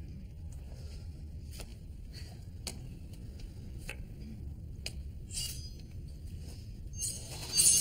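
Low, steady rumbling drone with faint scattered clicks, then a sudden loud rush of noise near the end.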